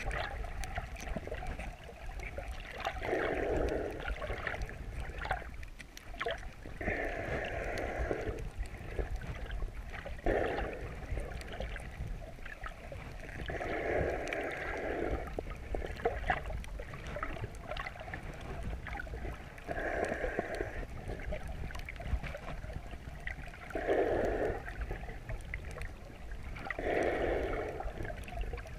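A swimmer's slow, regular breathing, one muffled breath about every three to four seconds, heard underwater through the chest-mounted camera's housing over a low water rumble.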